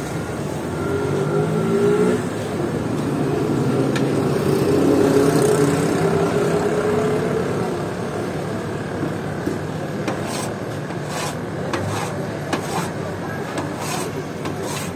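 Steel scrapers chopping and tapping on a rolled ice cream cold plate: a run of sharp metallic clicks in the second half. Steady traffic noise runs underneath and is the loudest sound in the first half.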